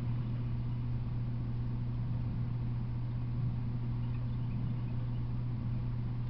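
A steady low hum with a faint hiss behind it, unchanging throughout; no train passes.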